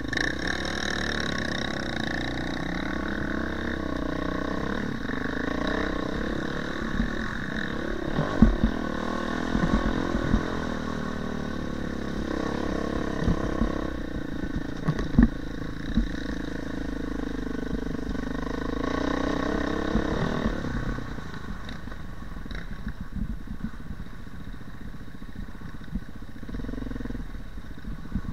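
Dirt bike engine running as the bike rides a rough dirt trail, its pitch wavering with the throttle, with several sharp knocks from bumps through the middle. The engine gets quieter about two-thirds of the way through.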